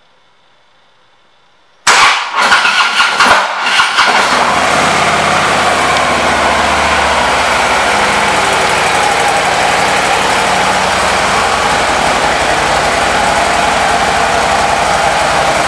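2014 Harley-Davidson Ultra touring motorcycle's V-twin engine starting: about two seconds in it catches suddenly with a few uneven surges, then settles about four seconds in into a steady idle.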